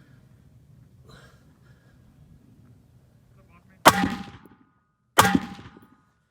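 Two rifle shots about a second and a half apart, each a sharp crack followed by the ringing of a struck steel target.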